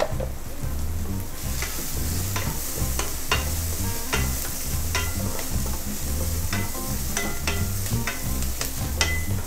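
Chopped onions sizzling in hot oil in an aluminium pan while a wooden spatula stirs them, with frequent clicks and scrapes of the spatula against the pan. The sizzle picks up about a second and a half in.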